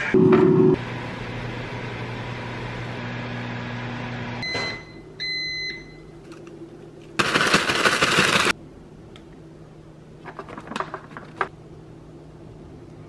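Instant air fryer giving a loud beep, then its fan running with a steady hum. About four and a half seconds in come a clunk and a few short, higher beeps, followed by a loud burst of noise lasting just over a second and a few light clicks.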